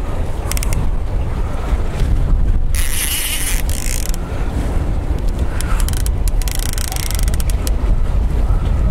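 Strong wind buffeting the microphone in a steady low rumble, with a short stretch of higher mechanical whirring from an Okuma Komodo baitcasting reel about three seconds in as a fish is fought.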